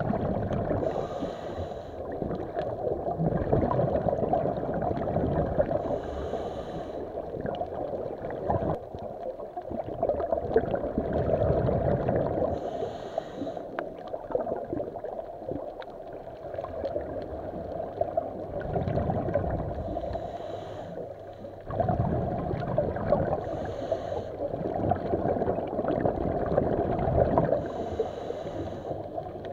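Muffled sloshing water with a person breathing in slow, uneven breaths, a short hiss every few seconds, typical of a snorkeler or diver filmed with an underwater camera.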